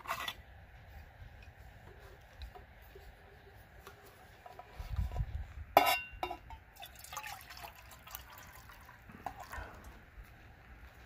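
Water poured from a metal canteen into a metal canteen cup, with a sharp metal clink about six seconds in and several lighter clinks and taps of the cup and canteen being handled.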